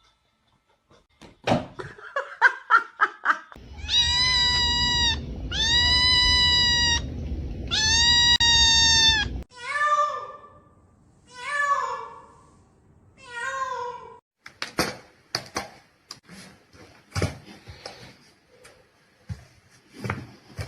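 A cat meowing: three long, steady, high calls, then three shorter, lower meows. After that come a run of sharp knocks and clicks.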